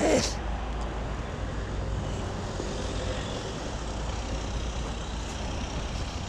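Steady road traffic on a city street, cars passing with a low rumble. A brief loud swish with falling pitch comes right at the start.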